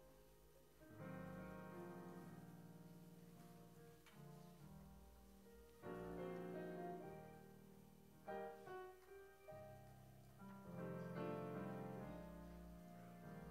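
Quiet keyboard music playing slow, held chords with a deep bass, a new chord coming in every few seconds.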